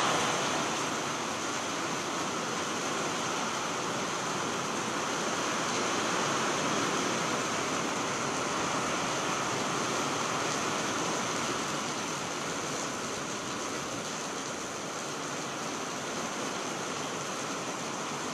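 Heavy rain pouring steadily, a dense even hiss of rain falling on the street, roofs and trees.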